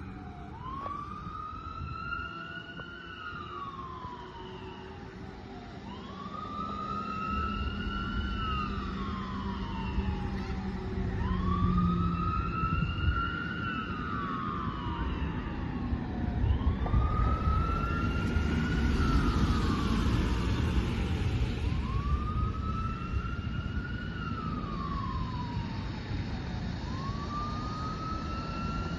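Fire engine siren wailing in a slow wail, its pitch rising and then falling in repeated cycles about every five seconds as the engine responds to a call.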